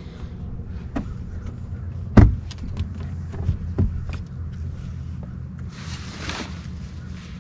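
Knocks and thumps of a person climbing from an inflatable dinghy onto a boat's swim platform, the heaviest thump about two seconds in, over a steady low hum.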